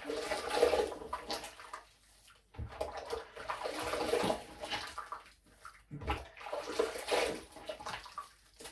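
Running water splashing in three spells of about two to three seconds each, with short breaks between.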